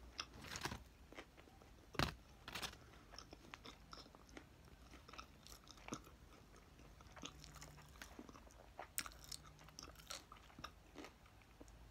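A person chewing food close to the microphone, with scattered crunches and wet mouth clicks.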